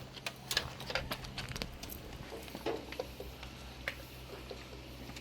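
Scattered light clicks and taps of tools and small metal parts being handled, over a steady low hum.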